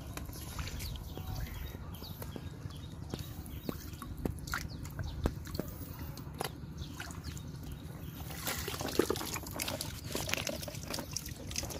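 Shallow muddy water sloshing and dripping as hands and a wicker basket work in it while snails are gathered, with scattered small clicks and knocks throughout, busier near the end.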